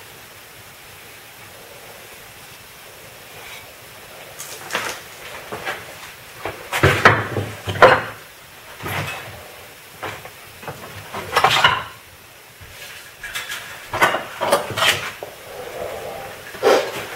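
Irregular knocks and clatter of hard objects being picked up and set down on a workbench, after a few seconds of faint steady hiss. The loudest bumps come about seven and eight seconds in and again near twelve.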